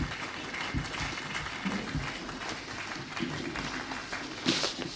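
Audience applauding: many hands clapping in a steady patter that thins out near the end.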